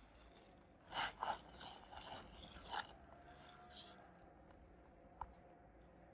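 Nylon tent fabric rustling and crinkling as it is handled and pulled over, in short bursts, loudest about a second in and again just before three seconds, with a single sharp click later.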